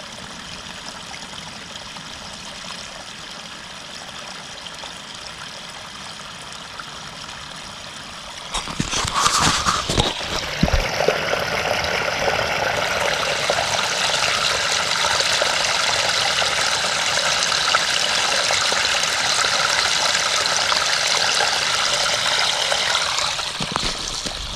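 Snowmelt runoff running steadily into a buried drainage pipe, which is taking in a lot of water. The rush gets much louder about eight or nine seconds in.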